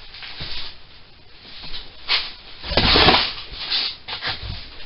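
Rustling and handling noises from someone working at a bench, in irregular bursts, loudest for about half a second around three seconds in.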